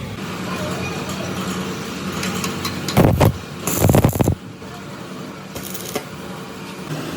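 Road traffic with a steady low engine hum and light metallic clinks, broken by two short, loud pitched sounds about three and four seconds in.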